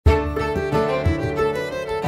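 Instrumental background music, cutting in abruptly with a quick run of pitched notes.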